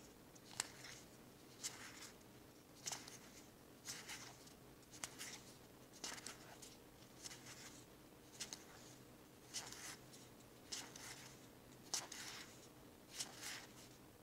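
Faint swishes of Pokémon trading cards slid one at a time off a held stack onto another, about once a second.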